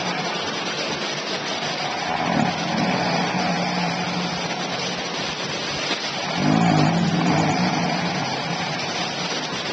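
A woman snoring heavily in a sent-in recording, with a steady hiss throughout. There are two rattling snores, a weaker one about two seconds in and a louder one past the middle. The sleep doctor hears two stages in each: a snore, then a second effort to breathe to keep the airway from closing, a sign of greater obstruction on the way to sleep apnea.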